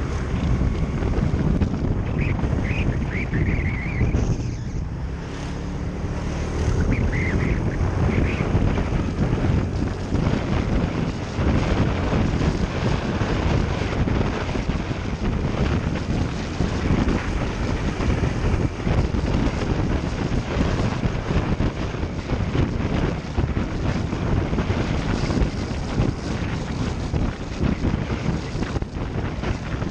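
Wind buffeting the microphone over a motorcycle's engine and road noise while riding. About five seconds in the noise eases briefly and the engine note rises as it picks up speed again.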